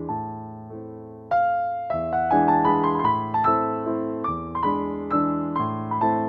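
Background piano music: soft sustained chords, then a louder passage of quicker notes coming in about a second in.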